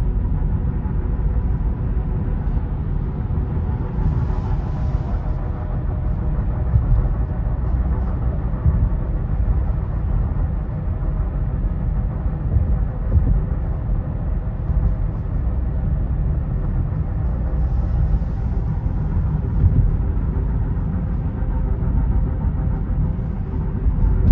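A car on the move: a steady low rumble of engine and road noise, with a faint steady whine above it.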